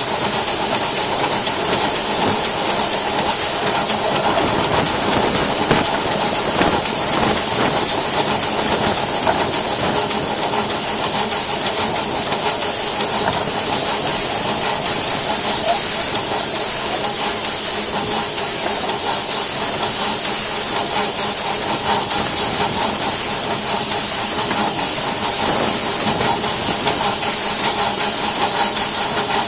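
Steam hissing steadily from a Crown two-foot-gauge steam locomotive as it runs along the track.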